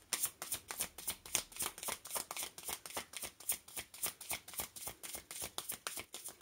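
A deck of oracle cards being shuffled by hand: a quick, even run of soft card slaps and riffles, several a second, without a break.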